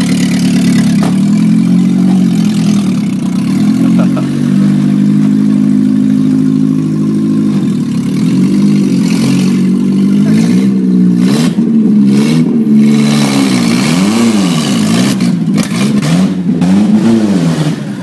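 A stripped-down pickup truck's engine running under way, steady at first, then revved up and down several times in the second half.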